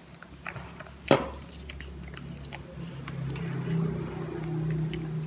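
A baby macaque eating pulp from a squeezed orange half, with soft wet chewing and small smacking clicks. A single sharp click comes about a second in, and a low steady hum runs underneath from about two seconds on.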